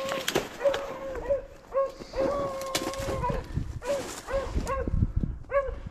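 A beagle baying on a rabbit hunt: a long drawn-out bawl about two seconds in, between and after which come short chop barks at a steady pitch. Twigs and brush crackle close by.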